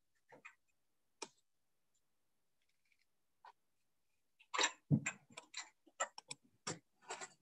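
Handling noise from the device filming the call: a few faint clicks, then from about halfway through a quick run of knocks, taps and clatter as it is gripped and moved.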